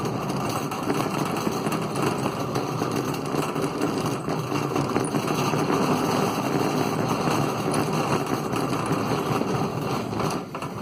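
Cart wheels rolling fast, a steady rumble that drops off near the end.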